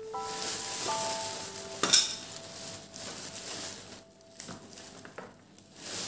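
Thin plastic carry bag rustling and crinkling as newspaper-wrapped items are pulled out of it, with one sharp, loud crackle about two seconds in. A few soft held notes of background music sound underneath.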